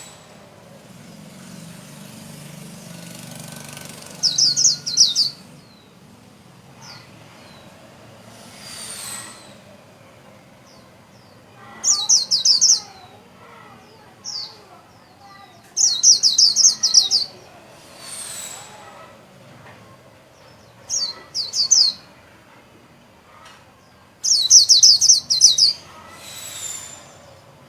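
A white-eye (vành khuyên) singing its rapid, high-pitched 'líu' warble. The song comes in short bursts of about a second, six times, with a few single thin high notes in between.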